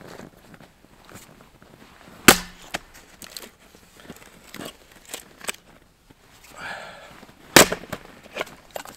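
Axe splitting firewood: two sharp blows into a log stood on end, a little more than five seconds apart, each with a short ring, and lighter knocks of wood being handled in between.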